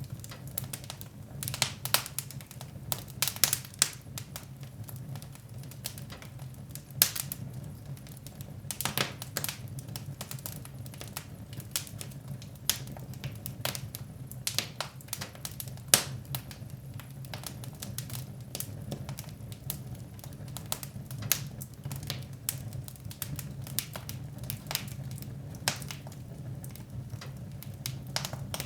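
Fireplace fire crackling, with irregular sharp pops and snaps over a low steady hum; the loudest pops come about 3, 7 and 16 seconds in.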